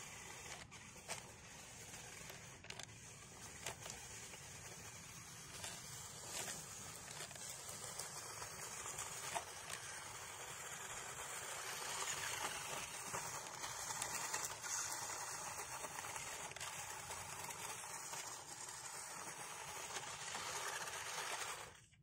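Small electric RC off-road car's motor and gearing whirring as it drives over dry leaves and dirt, with scattered clicks and crunches from the tyres. It grows louder about halfway through.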